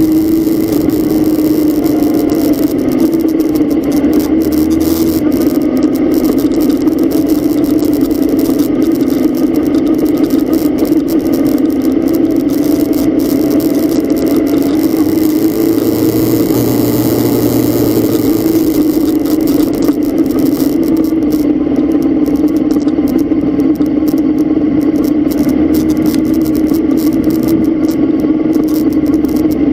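A vehicle's engine runs with a steady, slightly wavering drone, with rattling and rain and road noise around it, heard from inside the vehicle.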